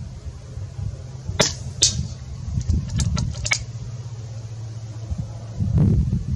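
A .177 FX Wildcat PCP air rifle firing a 13-grain slug: a sharp shot and, a fraction of a second later, a second sharp crack of the slug striking the target. A few light mechanical clicks follow about a second later, over steady wind rumble on the microphone.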